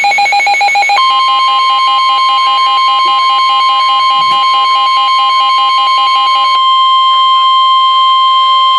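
NOAA Weather Radio 1050 Hz warning alarm tone, a steady single-pitched tone that starts about a second in and holds, announcing a warning broadcast. A weather radio receiver's rapid pulsing alarm beep sounds over it and stops about two-thirds of the way through.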